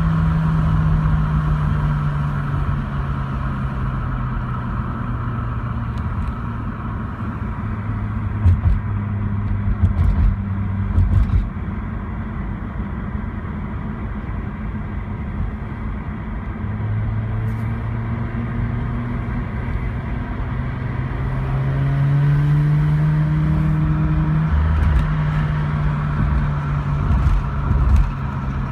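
Mazda RX-8's twin-rotor rotary engine running with a misfire: a steady engine note that drops in pitch a few seconds in and climbs again later, broken by irregular low thumps about eight to eleven seconds in and near the end.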